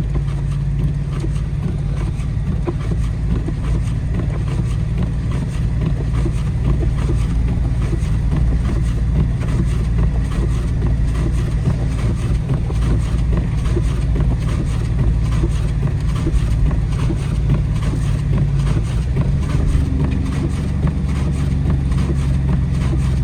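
Dodge Charger R/T's 5.7-litre Hemi V8 droning steadily under way, heard from inside the car, with wind noise over the microphone. The engine note shifts slightly near the end.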